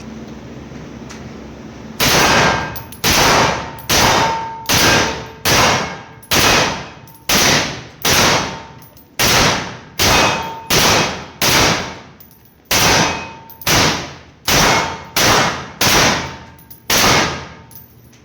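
Armscor RD4P gas-piston rifle fired in single shots, about eighteen at roughly one per second, each shot echoing and fading, with a faint metallic ring after some of them.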